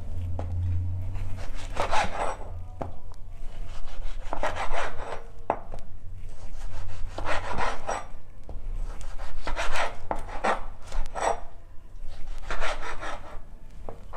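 Knife sawing through pieces of boneless smoked pork, cutting it into medium chunks: a series of separate noisy cutting strokes, one every second or two.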